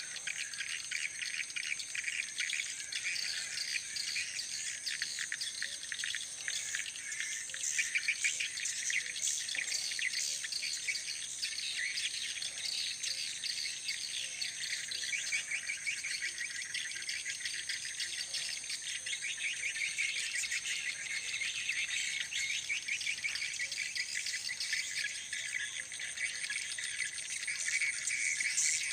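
Dense, continuous high-pitched chirping and twittering, many rapid calls layered over one another.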